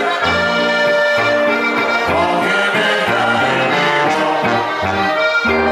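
Slovenian folk dance-band music led by accordion: a melody over a steady, regular bass beat.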